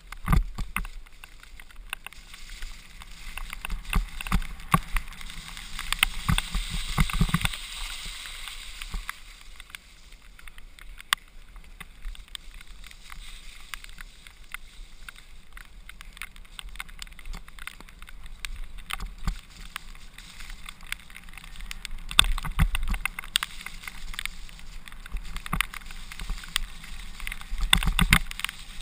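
Mountain bike descending a muddy trail at speed: tyre noise on wet dirt with frequent sharp rattles and knocks from the bike over bumps, over a low rumble of wind on the microphone.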